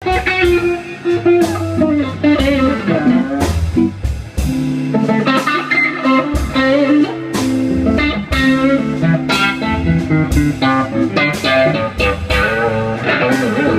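Live blues band playing: electric guitar lines over bass and drums, with the drums keeping a steady beat of about one stroke a second.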